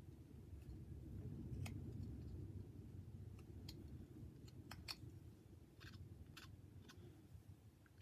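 Small whittling knife cutting into a hand-held wooden carving: a handful of faint, sharp snicks as the blade slices off thin shavings, spaced irregularly, over a low rumble.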